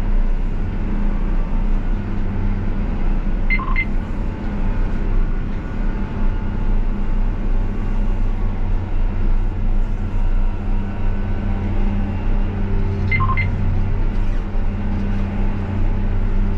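Steady drone of a John Deere 8RX 410 tracked tractor's diesel engine, heard from inside the cab while it pulls a compactor through a field. Two short double beeps sound over it, one a few seconds in and one near the end.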